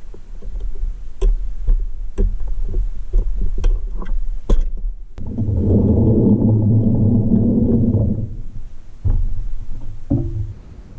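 Scattered sharp clicks and taps as a pressed-steel Tonka toy forklift is handled. About five seconds in, these give way to about three seconds of loud, dense low rumble.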